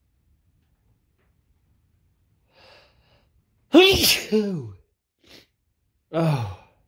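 A man sneezes once, loudly, about four seconds in. The sneeze comes in two falling parts and follows a faint intake of breath.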